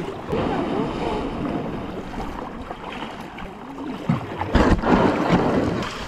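Wind buffeting the microphone over the sea, with water washing and splashing. A louder gust or splash comes a little before the end.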